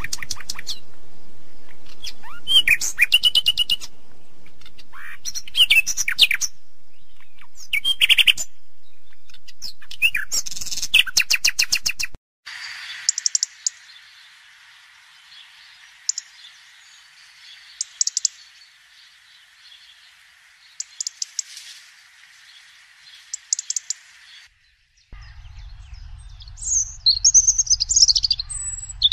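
Recorded birdsong spliced from several takes: loud, rapid trilled phrases repeated about every two seconds, then after about twelve seconds a quieter stretch of high chirps over a steady hiss, and near the end a different recording with a low hum under busy chirping.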